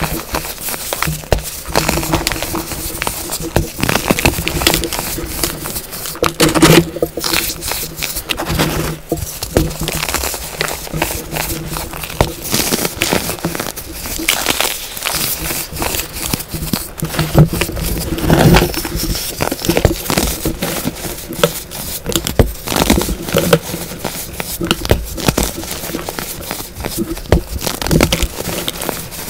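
Hands squeezing and crumbling chunks of compressed baking soda: a dense, continuous run of soft crunches and crackles.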